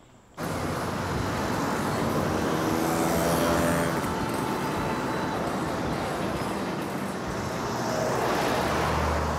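Road traffic noise starting abruptly just under half a second in: a steady rush of passing vehicles, with an engine's pitch bending a couple of seconds in and a low engine hum near the end.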